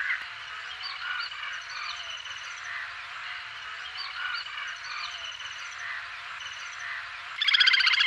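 Little grebes calling: scattered short high notes and thin fast trills, then a loud, fast trill starts near the end.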